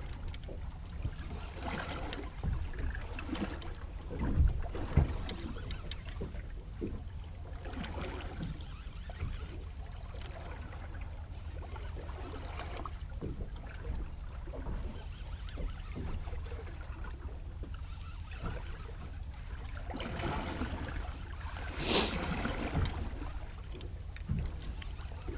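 Small fishing boat at sea: a steady low rumble under a faint wash of noise. There are low thumps about four and five seconds in and a short, louder rush of noise about 22 seconds in.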